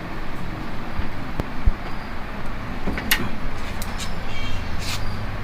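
A steady background rumble with a few light clicks and taps as the graphics card's mounting bracket is screwed down in the PC case.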